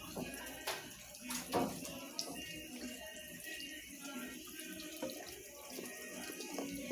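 Water pouring into a Consul CWS 12 top-loading washing machine as it fills at the start of the wash cycle, with a couple of light knocks about a second in.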